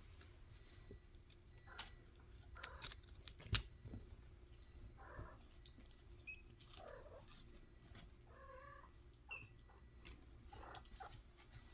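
Five-week-old kittens mewing in a few short, faint cries, with scattered light clicks and taps around them and one sharp tap a little over three seconds in.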